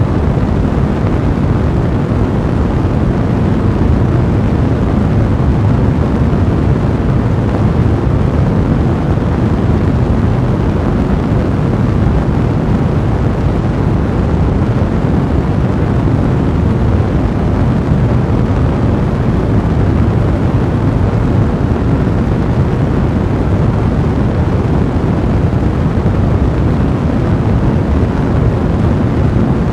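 Fire blazing in a fireplace: a steady low roar of flames with dense crackling.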